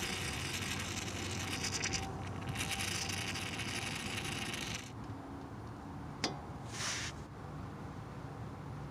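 Aerosol can of penetrating fluid spraying with a steady hiss onto a seized wheel speed sensor fastener: two long sprays with a short break, then a sharp click and one brief spray.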